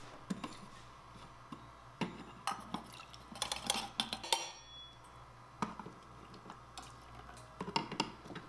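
Miniature stainless-steel pot and colander clinking and tapping against each other as noodles are tipped from the pot into the colander, with a quick run of clinks and a brief metallic ring about halfway through. A few more light metal taps come near the end from the tiny slotted spatula.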